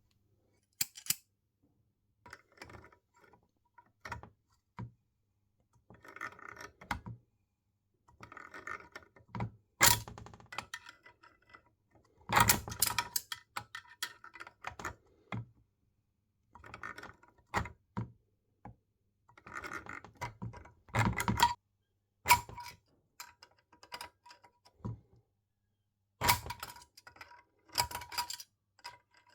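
Intermittent clinks, knocks and rattles of metal tools and engine parts being handled on a workbench, in short bursts with quiet gaps between, the loudest about ten, twelve and twenty-one seconds in.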